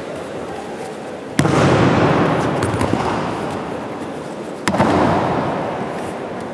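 Two heavy thuds of aikido breakfalls, a body slamming onto the tatami mat, about three seconds apart. Each echoes for a second or two in the sports hall over a low crowd murmur.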